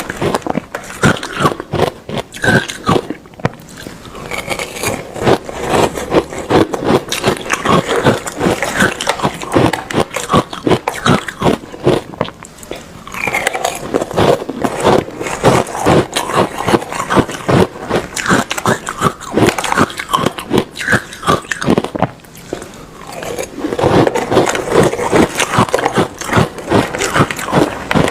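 A person biting and chewing hard ice close to the microphone: dense, rapid crunching and cracking, with short lulls between mouthfuls.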